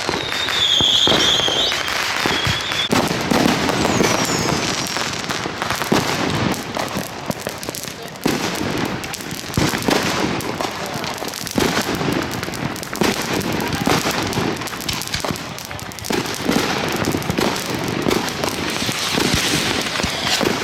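Consumer firework cake firing a rapid, continuous run of bangs and crackling shots. A few high whistles sound in the first three seconds, and a falling whistle about four seconds in.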